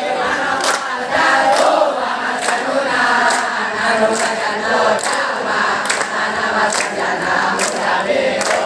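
A large crowd of boys singing a yel-yel cheer together, clapping in rhythm about twice a second.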